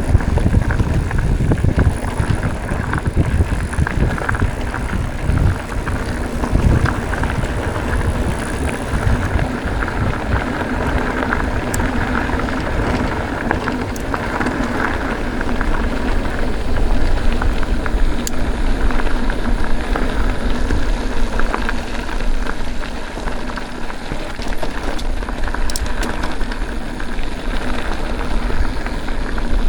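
Mountain bike being ridden over a rough dirt trail: steady crackling tyre noise with scattered clicks and rattles, and a heavier low rumble through roughly the first nine seconds.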